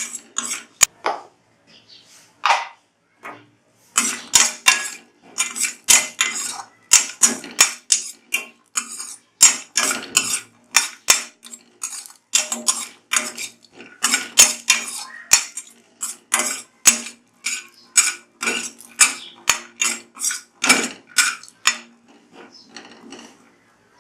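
Spatula scraping and clinking against a kadhai in quick repeated strokes, about two a second, while coconut pieces are stirred and roasted in a little oil until golden brown.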